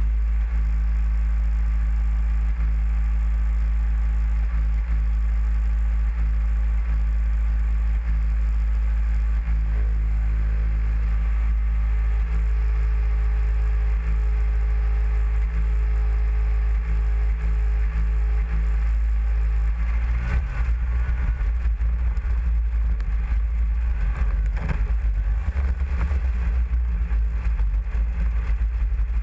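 Snowmobile engine running steadily at idle, then about two-thirds of the way through revving up as the sled moves off along a snowy trail, with the engine rumble rising and rattles and clatter from the ride over the snow.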